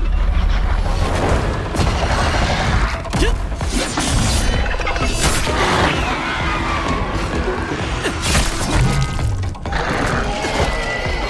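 Action-scene sound effects, a run of crashes, shattering and heavy impacts, over a dramatic music score.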